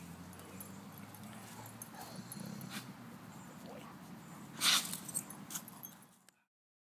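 Great Dane making low sounds as it rolls on its back in the grass and has its chin rubbed, with one short, louder sound about two-thirds of the way in. The sound cuts off shortly before the end.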